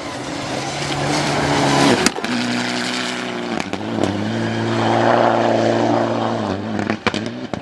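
Rally car engine running hard on the stage: the note climbs, breaks at a sharp crack about two seconds in, then holds a steady pitch with a rush of tyre and gravel noise. Near the end the engine note drops away and a few sharp pops follow.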